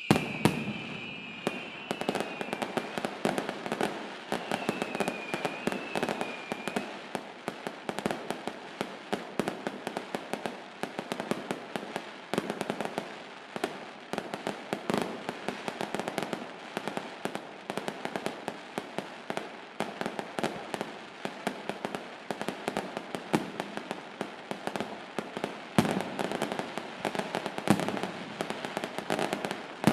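Fireworks going off: a dense, continuous run of rapid crackling pops and cracks, with a wavering whistle during the first several seconds.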